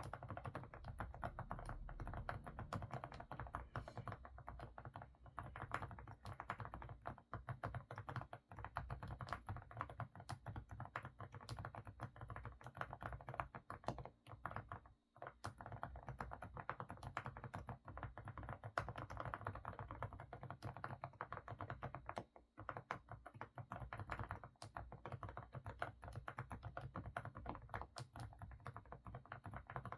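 Continuous fast typing on an AK68 mechanical keyboard with semi-silent Didimdol switches, a full, muffled keystroke sound likened to a stew bubbling. The typing breaks off briefly about halfway through and again about three-quarters through.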